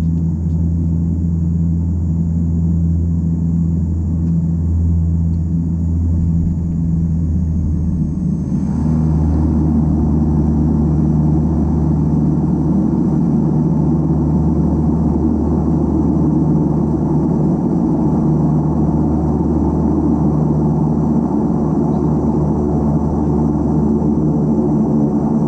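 Cabin drone of an Antonov An-24's twin Ivchenko AI-24 turboprop engines and propellers during the landing approach, steady and loud. About eight seconds in, the sound grows louder and rougher, and a faint high whine drops slightly in pitch.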